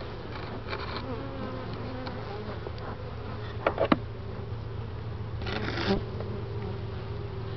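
Honeybees buzzing around an open hive: a steady drone, with single bees passing close and wavering in pitch. A couple of sharp knocks about four seconds in and a short noisy rustle about two seconds later.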